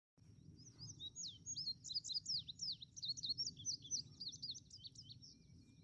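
Indigo bunting singing: a quick run of high, sweeping, partly paired notes lasting about four and a half seconds, over a faint steady high tone and low background rumble.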